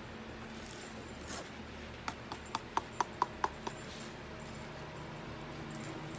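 A quick run of about eight sharp knocks from construction work at a neighbouring house, about two seconds in, over a steady low background.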